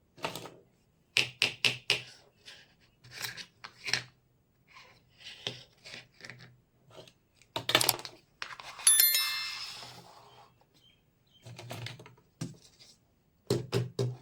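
Miniature toy kitchen pieces being handled and set down: a run of light clicks and taps, with one bright metallic clink that rings briefly about nine seconds in.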